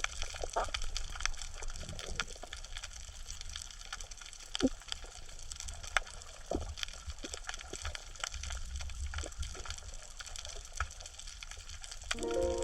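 Underwater crackle of a coral reef: a dense, irregular scatter of sharp clicks and pops over a low watery rumble. This is the "michi-michi" sound said to be the corals breathing. Soft music with held notes comes in near the end.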